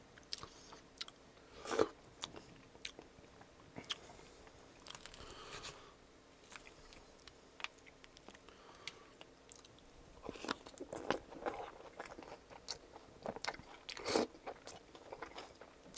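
Knife and fork cutting through chicken enchiladas topped with crunchy Fritos, with scattered small clicks and scrapes close to the microphone. Near the end a forkful is taken into the mouth and chewed with a crunch.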